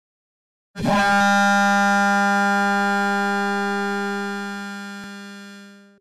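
Vital software synth patch imitating the "lobotomy" meme sound effect: a sudden noisy hit about three-quarters of a second in that settles into one loud held pitched tone, fading slowly over about five seconds and cutting off.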